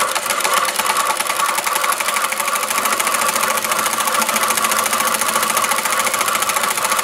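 Industrial straight-stitch sewing machine with a buttonhole attachment running at speed, sewing a buttonhole: a steady, fast, even clatter of needle strokes.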